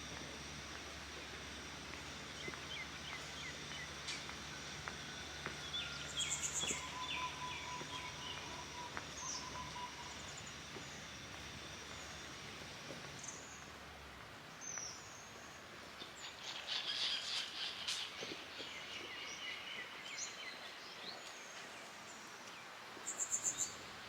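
Wild birds chirping and calling in short bursts, with the loudest runs of chirps about six, seventeen and twenty-three seconds in. A low steady rumble sits underneath and stops about halfway through.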